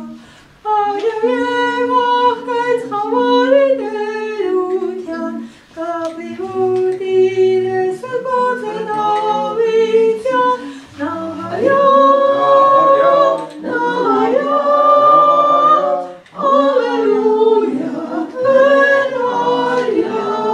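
A woman singing a song unaccompanied, holding long notes in phrases of about five seconds with short breaks between them.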